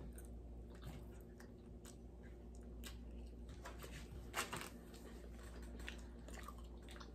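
Faint chewing of a chocolate-covered toffee-filled waffle: soft mouth clicks, with one slightly louder click about four seconds in.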